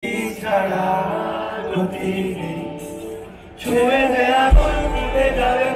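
Live band music with a male singer, played through a big concert sound system and heard from within the crowd. The music thins and drops in loudness about three and a half seconds in, then comes back fuller, with a deep bass entering about a second later.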